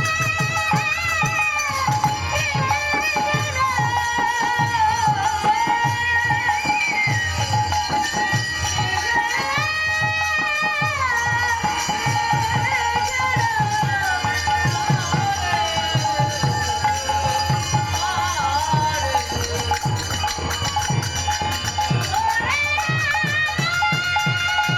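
Bengali kirtan music: a sliding melody over a steady held drone, driven by fast, regular hand-drum beats and the jingle of small cymbals.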